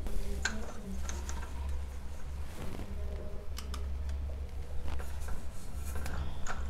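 Scattered small plastic clicks and taps as the threaded pressure bolt of a Fisher-Price baby gate is screwed out by hand, its plastic adjuster wheel turning to press the rubber pad against the door frame. A steady low hum lies underneath.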